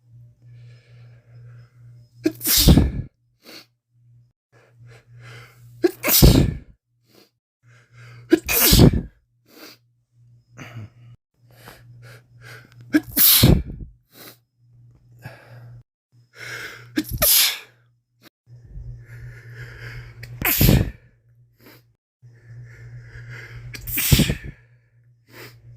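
A man with a head cold sneezing over and over, seven sneezes a few seconds apart, with sniffles and breaths in between.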